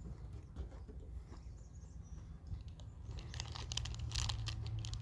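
Candy-bar wrapper crinkling, dense and crackly from about three seconds in, after a few faint clicks.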